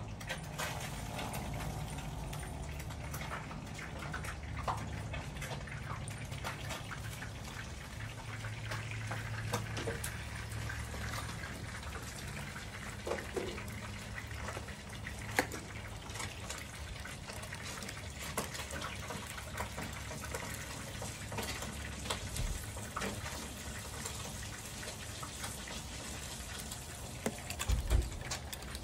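Steady rushing, water-like background noise with a low rumble. Scattered small clicks run through it, and a few louder knocks come near the end.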